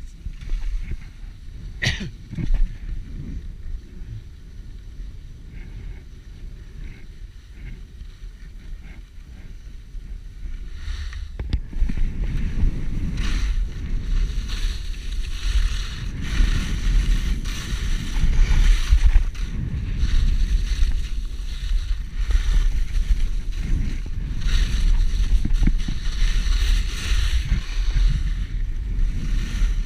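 Wind rushing over a body-mounted camera's microphone with the hiss and scrape of edges on packed snow, while riding down a groomed run. A few sharp clicks near the start; the rush gets clearly louder a little over a third of the way in as speed builds and stays up.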